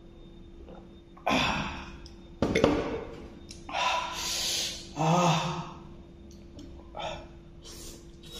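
A man breathing hard through his mouth, with about five loud, gasping breaths and sighs separated by short pauses, a reaction to the burning heat of extra-spicy Korean noodles.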